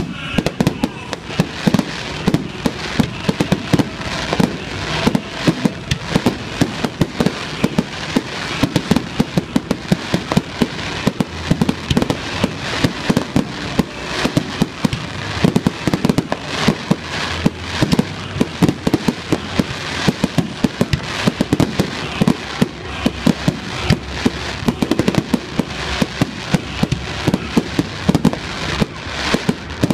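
Aerial fireworks display: shells bursting in rapid succession, a dense, unbroken run of bangs and crackle, several sharp reports a second.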